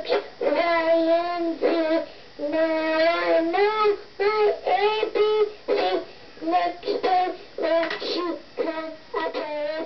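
A young girl singing: long held notes in short phrases for the first half, then shorter, choppier notes.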